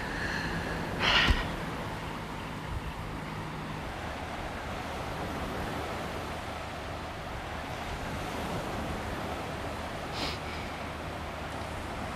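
Steady wind and surf noise by the sea. A person sniffles a couple of times after crying, briefly about a second in and again near the end.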